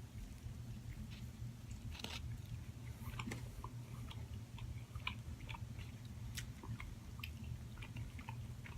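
A person chewing a bite of a breakfast burrito: many small, soft mouth clicks and smacks over a steady low hum.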